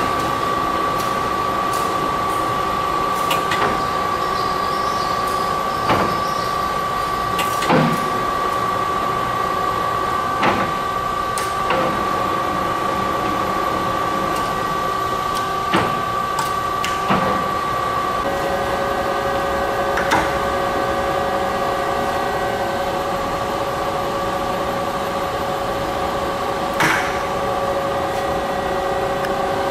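Geared headstock of a Warner & Swasey No. 5 ram-type turret lathe running with a steady whine, with about ten short clunks as the speed and control levers are worked. A little past halfway the whine drops to a lower pitch as the spindle speed is changed.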